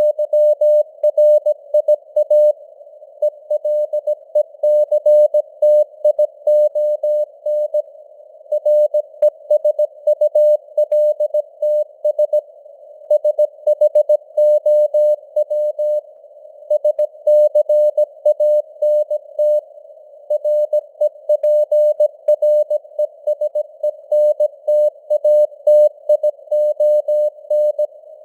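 Computer-generated Morse code (CW) sent at 17 words per minute: a single mid-pitched tone keyed on and off in dots and dashes, with short pauses between words. It sits in a narrow band of simulated radio hiss, like a CW signal heard on a receiver.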